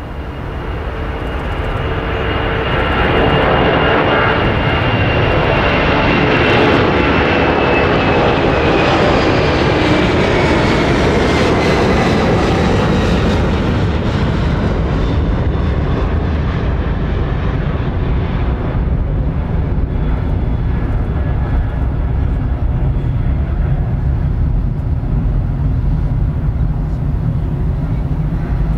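Lufthansa Boeing 747-400's four General Electric CF6 turbofans at takeoff thrust as the jet climbs out past overhead: a loud, deep rumble with a high whine that falls in pitch over the first dozen seconds as it passes. The rumble then continues steadily as it climbs away.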